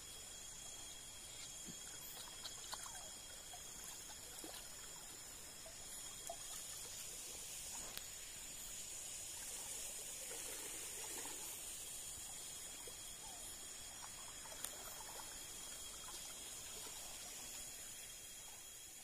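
Faint night ambience: a trickle of running water with insects calling in steady high-pitched tones. The sound fades out near the end.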